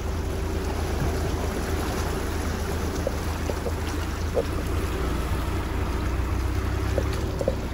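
Ford Bronco's tyres rolling through a shallow, rocky creek, water swishing and splashing steadily around the wheels over the low rumble of the engine, with a few faint clicks.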